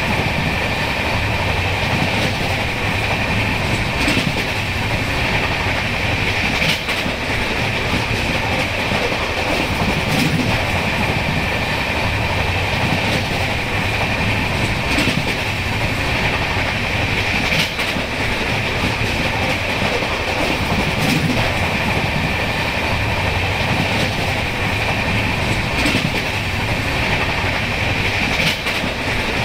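Express passenger train running at high speed, a steady rushing rumble of wheels on rail. Sharp clicks come every few seconds as the wheels pass over rail joints.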